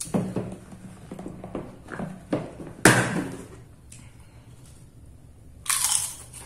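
Clear plastic food container being handled: small knocks and clicks on its pink lid, then a sharp snap about three seconds in as the lid comes off. A short rustling hiss near the end as a hand reaches into the container.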